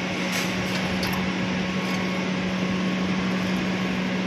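Creatomac 3-ton electric hoist's travel motor running in reverse, a steady electric hum over even mechanical running noise.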